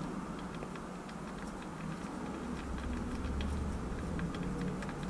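Scattered small clicks and taps of hands handling and fitting parts and wiring back into an RC truck's chassis.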